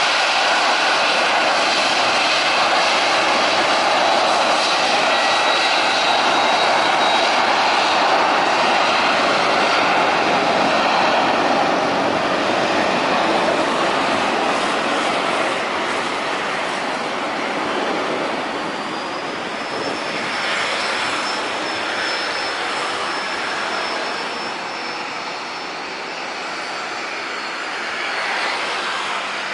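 Boeing 737-800's twin CFM56-7B turbofan engines on the takeoff roll: loud jet noise with a high whine on top, growing quieter over the second half as the jet accelerates away down the runway.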